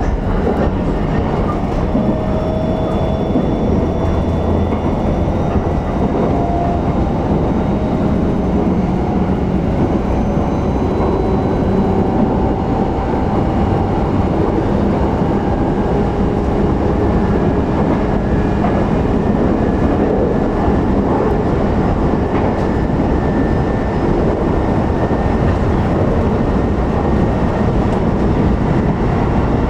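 Running noise heard inside the motor car of a JR E129 series 0 electric train between stations: a steady rumble of wheels on rail, with faint tones from the Toyo IGBT-VVVF traction equipment drifting slowly in pitch.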